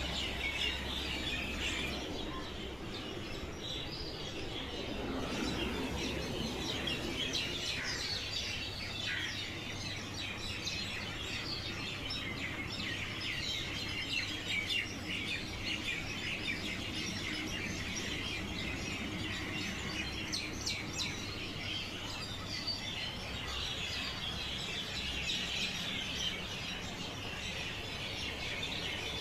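Morning chorus of many birds chirping, short high calls overlapping continuously.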